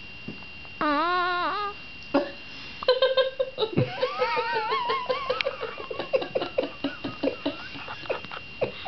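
A short wavering vocal sound about a second in. Then, from about three seconds, a long run of quick, high-pitched laughing or giggling.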